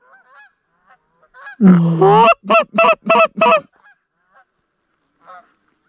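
Canada geese honking. Faint scattered calls from the incoming flocks, then about a second and a half in a long low honk followed by five loud, quick honks.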